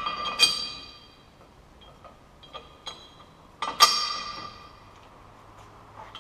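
Steel parts clinking against each other as a tow ball and its 16 mm bolts are fitted to a steel towbar bracket. There are a few sharp clanks with a ringing tail, loudest just after the start and again about four seconds in, with lighter ticks between.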